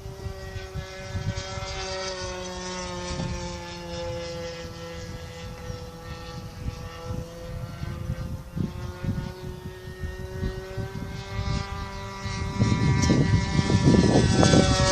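Glow-engine RC model airplane buzzing in flight, its pitch sagging slowly and then climbing again as it flies around. Wind gusts rumble on the microphone, loudest near the end.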